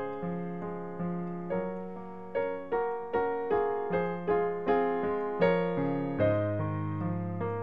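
Background solo piano music: notes struck a little over twice a second, each left to die away, over lower held bass notes.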